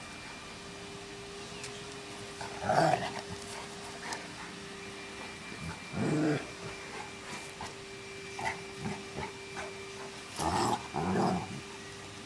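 Cane Corso and mastiff dogs at play, giving four short growls or grunting vocalisations: about three seconds in, about six seconds in, and a pair near the end. A steady hum runs underneath.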